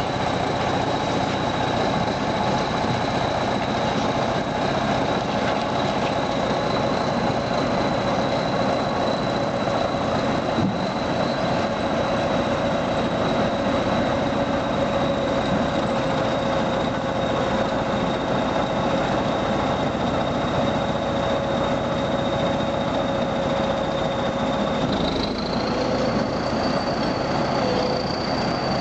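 Tractor engine running steadily under load as it pushes a motor ship off the bank into the water. A high whine in the engine note steps up in pitch near the end.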